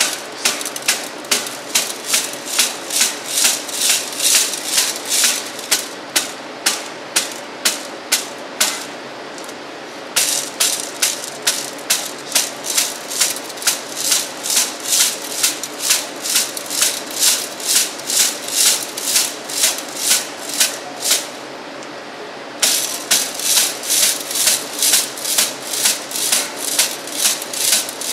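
Hand sieving an 8-inch brass No. 4 sieve with pan and lid: the heel of a hand smacks the sieve about two and a half times a second, and gravel aggregate rattles inside it with each smack. This is the rate of 150 smacks a minute. The smacking stops briefly twice, about a third of the way in and again about three quarters through, where the sieve is turned after each 25 or so strokes.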